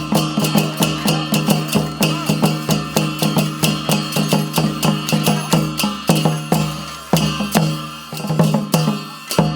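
Music of fast, steady drumming, about five strokes a second, with low pitched drum tones ringing under each stroke.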